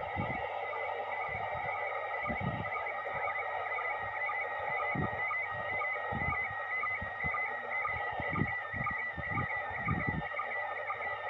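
Slow-scan television (SSTV) image signal in PD120 mode from the International Space Station: a continuous, rapidly warbling electronic tone over a steadier lower tone, with irregular low thumps and crackle underneath.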